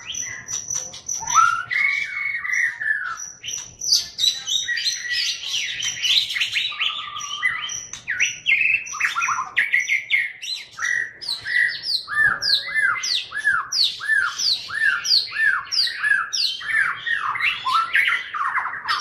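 A Medan white-rumped shama (murai batu) singing a loud, varied song of whistles and rapid chattering notes (crecetan). From about twelve seconds in, the song settles into a run of about nine repeated arched whistles, nearly two a second.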